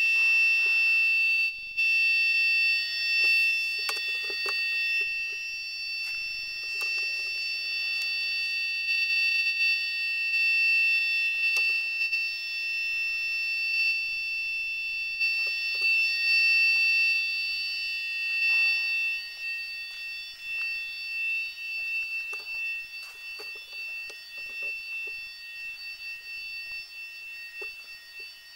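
Steady high-pitched electronic whine made of several tones sounding at once, easing somewhat in the last third, with faint knocks and rustles beneath it.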